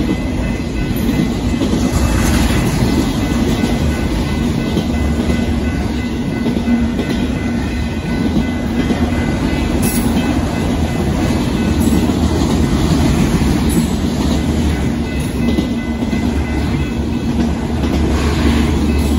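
A BNSF autorack freight train's cars rolling past at close range, making a steady, continuous rumble.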